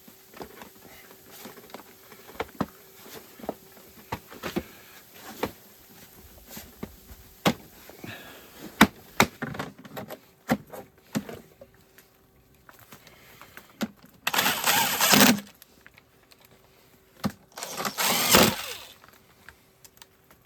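Many sharp clicks and knocks of a generator's plastic case and parts being handled and fitted, then two loud noisy bursts, each about a second long, near the end.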